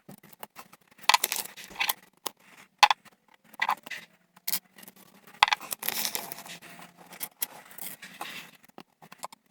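Plastic Lego pieces being handled during a build: irregular clicks, rattles and short scraping rustles, with a busier stretch of rustling about six seconds in.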